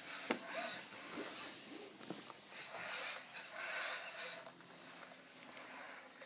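Genibo SD robot dog's joint motors whirring and its plastic body rubbing as it moves, heard as uneven raspy bursts that are loudest about halfway through, with a few small clicks.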